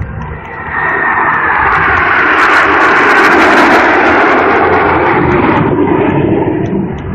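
A formation of eight T-50B jets flying over with their turbofan engines running. The roar swells about a second in, is loudest around the middle, and fades toward the end, with a high whine falling in pitch early in the pass.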